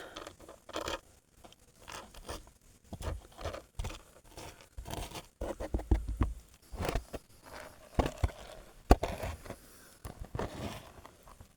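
Irregular scraping and crunching with small clicks, and one sharp click about nine seconds in: gravel and gold pieces being moved around in a gold pan.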